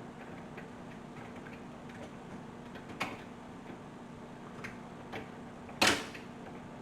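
A few sharp plastic clicks and knocks as the end caps are snapped onto a dishwasher rack's rails, the loudest snap coming about a second before the end, over a faint steady hum.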